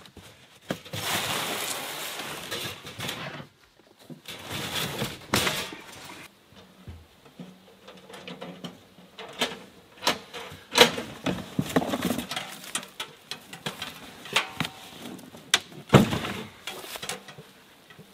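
Cardboard box of a wood stove being slid and opened, with stretches of scraping and rustling cardboard, then a run of sharp knocks and clicks as the stove's parts are lifted out and set down.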